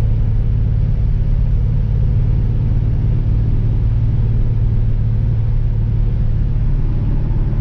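Engine and road noise of a vehicle cruising at a steady speed, heard from inside the cab: a steady low drone at constant pitch over a wash of tyre and wind noise.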